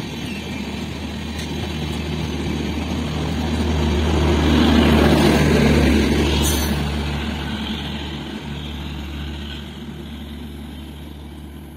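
Passenger train coaches rolling past at speed, a steady rumble of wheels on the track with a low hum underneath. It builds to its loudest about halfway through, then fades as the train draws away.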